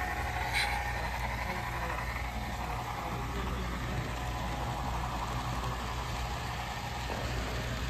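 HO scale FEC GP7 model diesel locomotive running with a steady low diesel-engine rumble as it pulls a string of boxcars along the track. A higher whine fades out after about two seconds, and there is one short click about half a second in.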